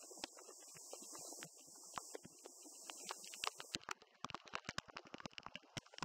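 Waterfall spray and water drops hitting a wet 360 action camera's microphones: a muffled rushing hiss with many sharp crackling ticks, which come thick and fast from about four seconds in.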